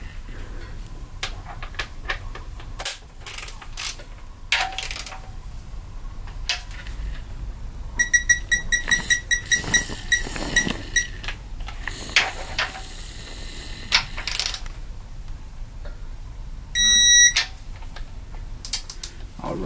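Digital torque wrench beeping: a rapid run of short electronic beeps, about five a second for some three seconds, then one longer beep about six seconds later. Scattered clicks and knocks of tools being handled.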